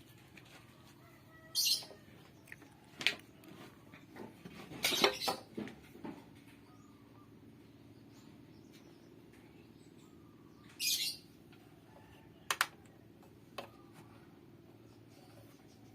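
A few sharp knocks and a short cluster of clatter, with two short high chirps, over a faint steady low hum.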